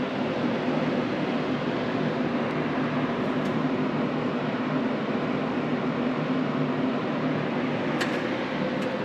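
Steady mechanical hum with a low drone, with a single sharp click about eight seconds in.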